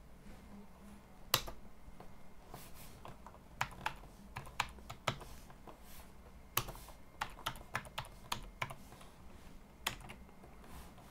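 Computer keyboard typing: scattered single keystrokes and short runs of quick key clicks, with pauses between them.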